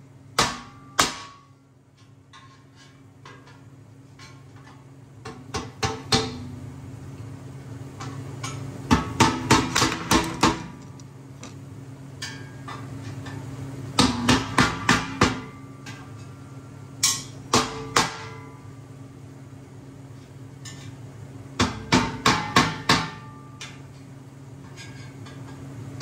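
Hammer blows on the steel of a backhoe bucket under construction, coming in quick bursts of three to six strikes with pauses of a few seconds between, knocking a steel piece into fit.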